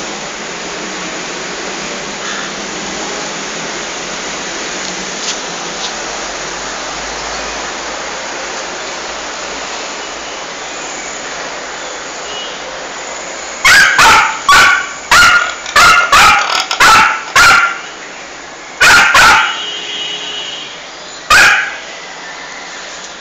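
Small dog barking in sharp, high yips: a quick volley of about ten barks starting about halfway through, two more a moment later and a single bark near the end, over a steady background hiss.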